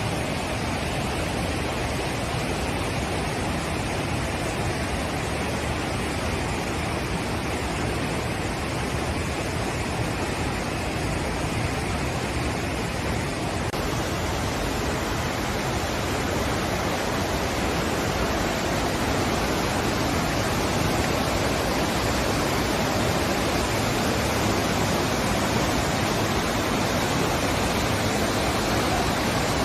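Steady rush of flowing water from a river or waterfall, a little louder and brighter from about halfway through.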